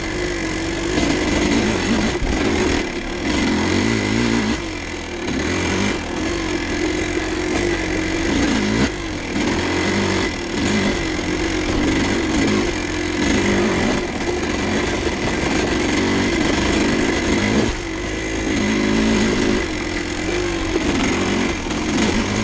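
1986 Kawasaki KDX200's two-stroke single-cylinder engine running under load as the dirt bike is ridden, its pitch rising and dropping every second or two as the throttle is opened and closed.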